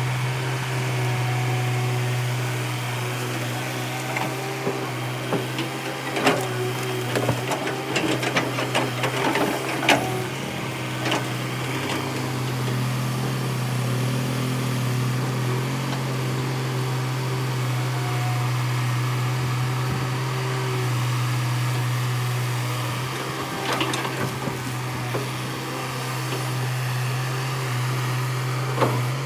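Tata Hitachi EX200 excavator's diesel engine running steadily. Irregular clanks and knocks come in a cluster about six to eleven seconds in, and a few more come near the end.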